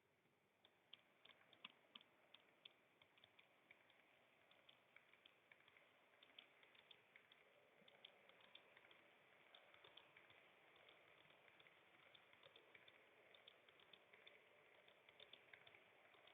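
Model train running along its track: faint, irregular clicking of the wheels over the rails and joints over a soft running whir that slowly grows louder.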